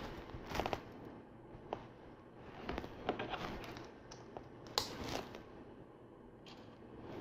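Small plastic LEGO pieces being handled and pressed together: scattered light clicks and rustles, the sharpest about five seconds in.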